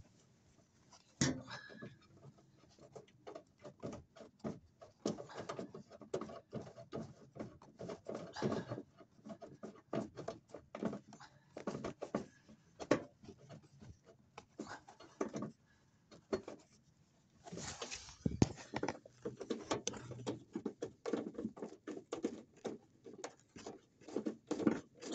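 Socket wrench working a bolt loose: a long run of irregular clicks and knocks, with a short pause about sixteen seconds in.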